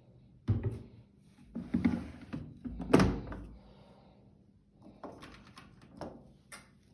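A series of household knocks and thuds, like doors or drawers being moved and shut, with the loudest thud about three seconds in and a softer run of knocks near the end.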